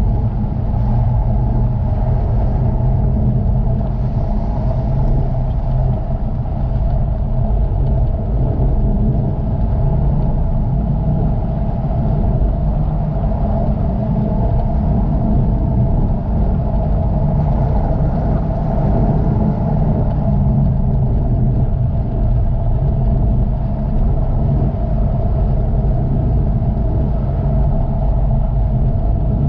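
Jaguar F-Type being driven at a steady pace: engine and road noise as a constant, even low drone, with no revving up or down.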